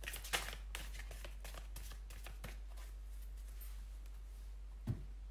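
Tarot cards being handled and shuffled: a run of quick rustles and light clicks in the first second, scattered small ticks after, and a soft thump near the end as the deck is cut.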